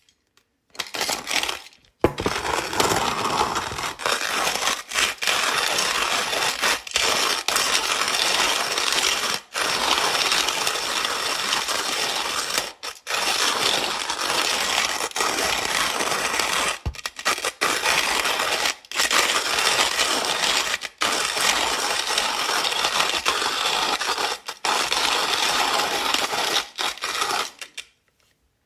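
Manual coffee grinder being cranked, grinding beans with a steady gritty crunch broken by brief pauses every couple of seconds.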